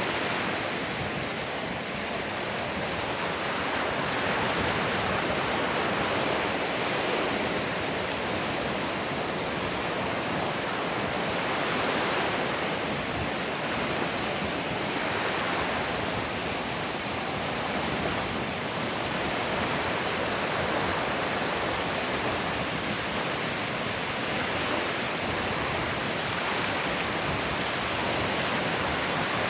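Ocean surf washing steadily on a sandy beach, a dense hiss that swells and eases gently every few seconds.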